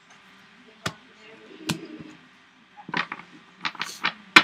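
Trading cards being handled at close range: about eight sharp taps and clicks, two spread out at first, then coming quicker in the last second and a half.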